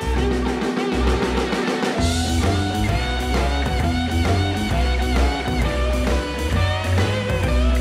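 Background music with guitar, bass and drums.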